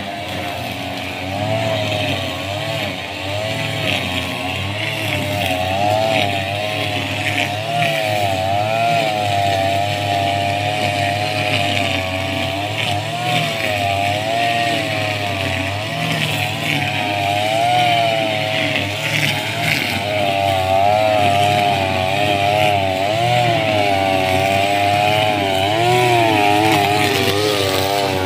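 Backpack brush cutter's small petrol engine running at high speed while cutting grass, its pitch wavering up and down continually as the cutting head is swung through the grass.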